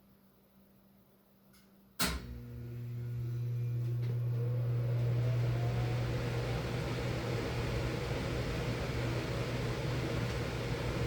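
Miller E3 electric furnace starting up: a sharp click about two seconds in, then a steady motor hum and the rush of the blower, which spins up over a couple of seconds with a rising whine and then runs steadily.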